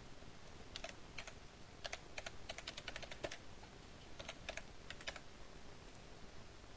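Computer keyboard being typed on: a quick, irregular run of faint key clicks that stops about five seconds in.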